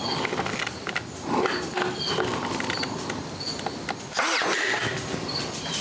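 Ryobi cordless brad nailer firing, its motor spinning up and then a sharp shot about four seconds in, with small clicks of the tool and workpiece being handled.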